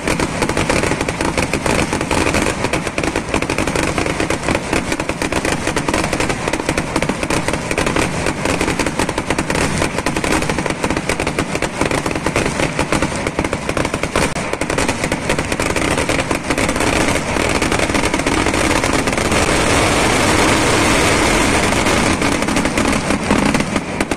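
Fireworks going off in a dense, unbroken barrage of rapid cracks and bangs, with no pause; it grows a little louder and more solid in the last few seconds.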